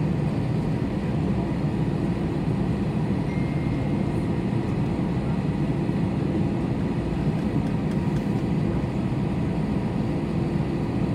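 Airbus A321's CFM56 engines at taxi power, heard from inside the cabin as a steady low rumble.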